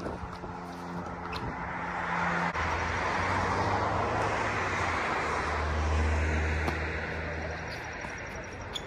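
A motor vehicle passing nearby, its engine and road noise swelling for a few seconds and then fading away.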